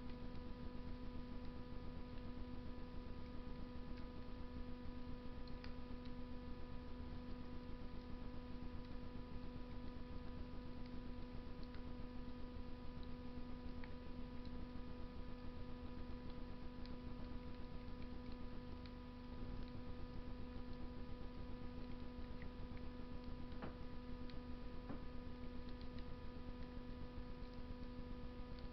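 Wood fire burning in a Russian stove, with occasional faint crackles and pops over a steady hum and a soft hiss.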